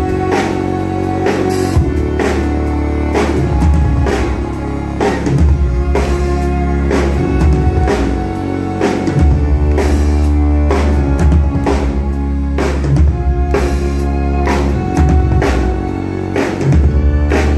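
Amplified live band playing an instrumental tune: a fiddle bowed over a drum kit keeping a steady beat with kick drum, sustained bass notes and plucked strings.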